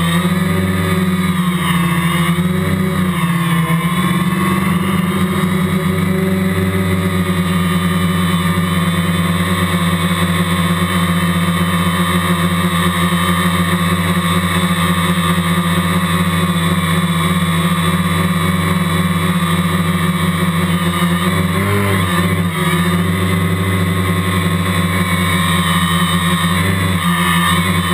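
Quadcopter's electric motors and propellers in flight, a loud, steady multi-tone whine as picked up by the GoPro mounted on the craft itself. The pitch wavers briefly near the start, again about two-thirds of the way through, and near the end.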